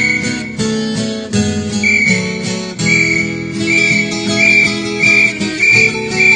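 Viola caipira, the Brazilian ten-string folk guitar, plucked in an instrumental piece, with a bird's high note repeating about every two-thirds of a second from about two seconds in.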